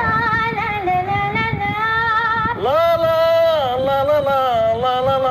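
Unaccompanied singing of a Bengali love song, with long held notes that slide up and down and waver in pitch; a new phrase swoops up and is held a little over halfway through.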